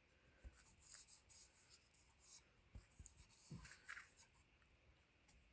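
Faint scratchy rustling and rubbing from small items being handled, in a string of short scrapes through the middle, with a few soft low knocks.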